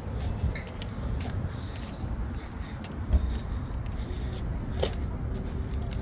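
Footsteps on asphalt with small metal items jingling and clicking in rhythm with the walking, over a low steady rumble.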